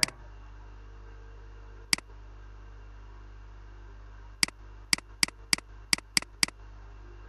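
Computer mouse button clicking: a single click about two seconds in, then a quick run of seven clicks, about three a second, over a steady low electrical hum.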